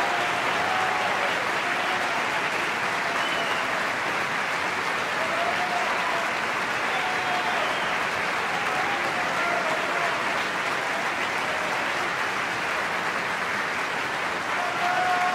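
A large opera-house audience applauding steadily at the curtain call after the performance.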